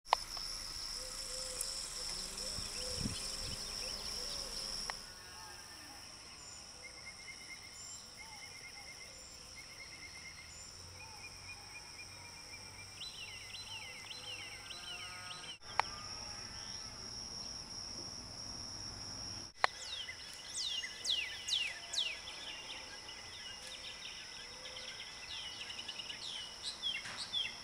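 Outdoor ambience: a steady high insect drone with birds chirping, in bursts of quick falling chirps. It changes abruptly a couple of times where clips are joined.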